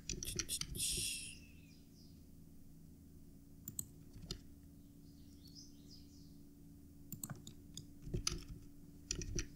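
Computer keyboard keys and mouse buttons clicking in scattered clusters of a few presses each, over a faint steady low hum.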